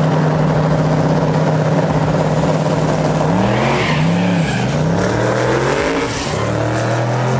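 Twin-turbo 526 cubic inch Hemi in a Pro 275 drag car, running loud at a held, steady pitch for about three seconds. The pitch then rises and falls in a few swells as the car leaves the line, and it settles to a steady note again near the end.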